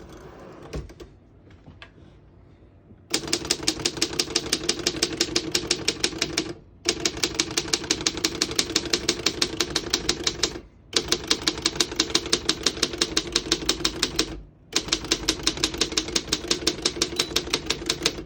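Keys of a 1936 Underwood 12 manual typewriter struck one after another in fast, even runs of about six sharp clacks a second. There are four runs with brief pauses between them. Every key types cleanly, with none sticking.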